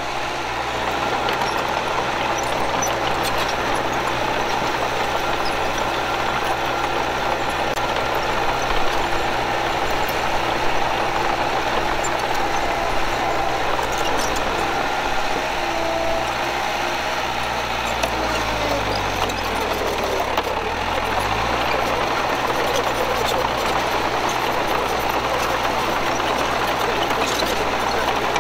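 Diesel engines of earthmoving machinery, a bulldozer and a small dump truck, running steadily under work. About two-thirds of the way through, one engine's speed drops and rises again.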